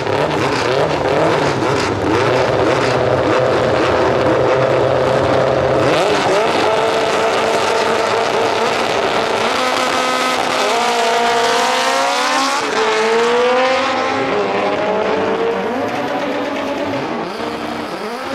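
Two drag cars' engines running and revving on the starting line, the revs climbing in rising sweeps. Then the cars launch down the strip and their engine sound fades away toward the end.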